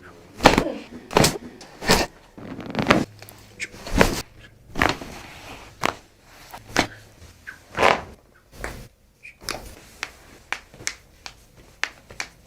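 A series of sharp, irregular clicks and knocks, more than a dozen, coming closer together in the second half.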